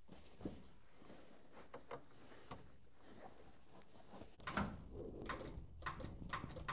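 Handling noise in a truck cab: faint rustling and a few small knocks, then from a little past the middle a louder run of sharp clicks and knocks, several a second.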